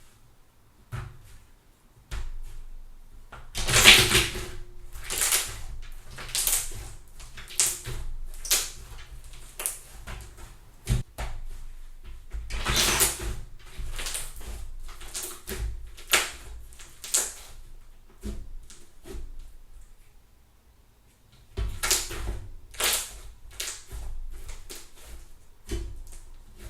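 Thick fluffy slime being stretched, folded and pressed, giving runs of sharp crackling pops and snaps as trapped air bursts. The pops come in three bunches, a few seconds apart, with a short lull about two-thirds of the way through.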